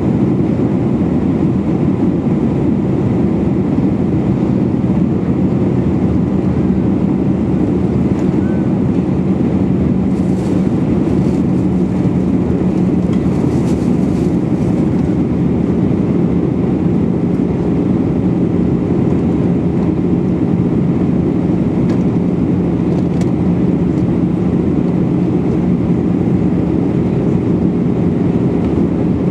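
Steady cabin noise inside an Airbus A319 airliner on approach, seated over the wing: its CFM56-5B engines and the rushing airflow make a constant loud rumble with a low steady hum running through it.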